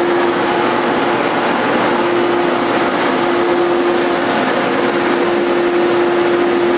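Suzuki Hayabusa inline-four engine running at steady, fairly high revs, with a steady whine over a loud rush of mechanical noise.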